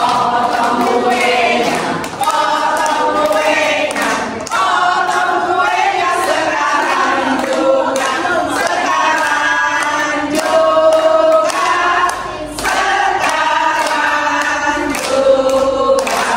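A group of women singing a birthday song together in chorus.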